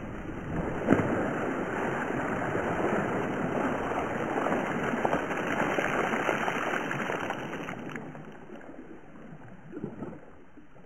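Water pouring and splashing in a steady rush, with a sharp splash about a second in, fading away over the last few seconds.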